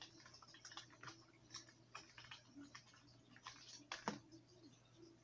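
Faint scattered clicks and crinkles of a plastic lure package being handled and opened to take out a small crankbait, with one sharper click about four seconds in.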